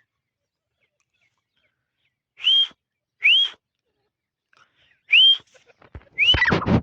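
Female grey francolin calling: three loud, spaced whistled notes, each rising and curving over, then a faster run of overlapping whistles near the end, with some rustling beneath.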